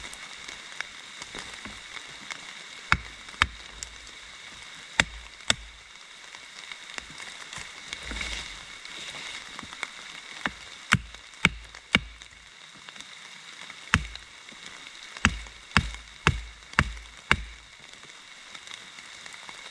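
Wooden baton striking the spine of an ESEE Laser Strike knife, driving the blade through a wet madrone log. About fourteen sharp knocks: a few spaced pairs at first, then a quicker run of strikes about half a second apart near the end.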